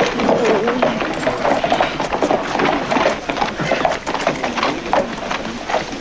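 Horses galloping: a fast, irregular clatter of hoofbeats.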